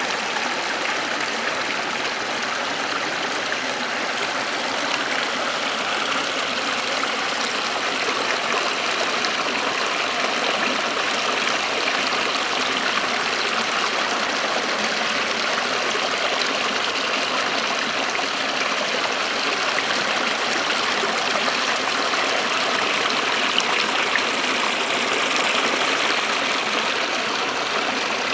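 Small waterfall splashing and running steadily.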